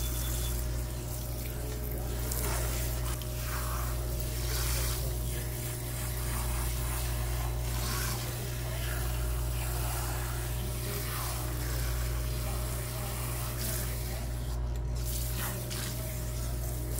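Water spraying from a salon shampoo-bowl hand sprayer onto hair and splashing into the sink basin, a steady hiss, over a steady low hum.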